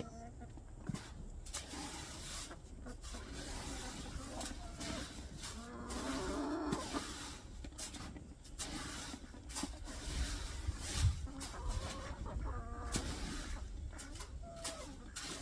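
Chickens clucking on and off, over scattered clicks and rattles of dry feed being scooped out of a galvanized metal trash can.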